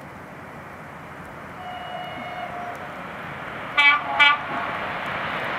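Electric locomotive sounding two short horn blasts close together about four seconds in, over the growing rush of the approaching train.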